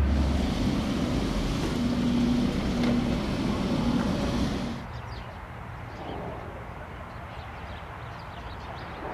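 Aircraft engine noise, a steady rushing sound with a faint low hum, that drops off abruptly about five seconds in to a quieter background.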